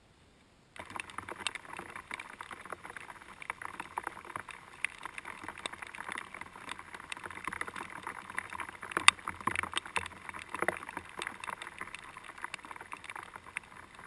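Rain pattering densely on a tent during a thunderstorm, starting suddenly about a second in.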